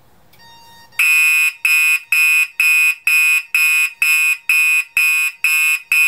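Fire alarm horn-strobe sounding in alarm, set off by the pulled manual pull station: a loud buzzy horn pulsing at about two blasts a second, starting about a second in. A faint tone comes on just before the horn starts.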